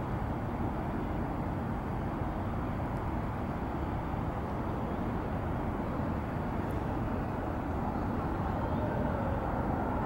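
Steady outdoor rumble of distant road traffic. Near the end a siren begins to come in faintly, wavering up and down.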